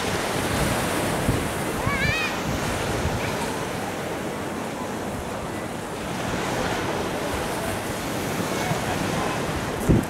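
Sea surf breaking and washing over a pebble beach in a steady rush, with wind on the microphone. A brief high chirp about two seconds in.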